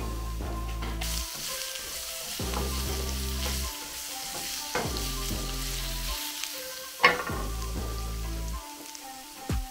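Cooking oil and then beaten egg sizzling as they hit a hot frying pan, the sizzle starting about a second in. A sharp clink or knock about seven seconds in.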